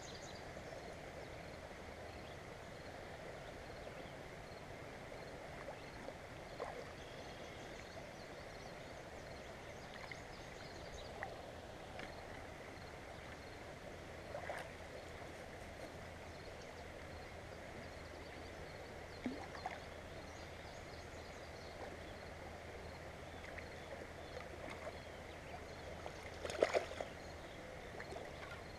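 Steady rush of a creek's flowing water. Faint high chirps come in the first couple of seconds, and a few light knocks are scattered through, the loudest cluster near the end.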